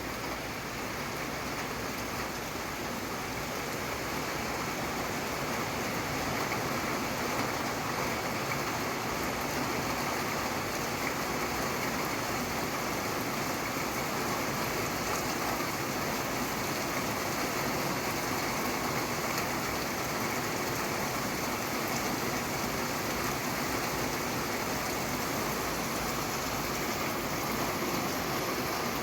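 Steady rain falling, an even rushing hiss with no distinct drops or thunder, swelling slightly in the first few seconds.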